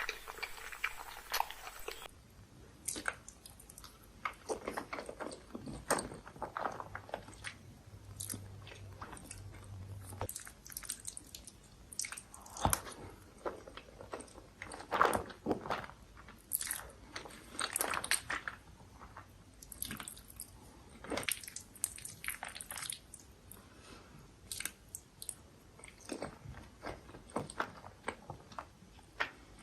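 Close-miked chewing and biting of creamy Alfredo pasta: an irregular run of soft wet mouth clicks.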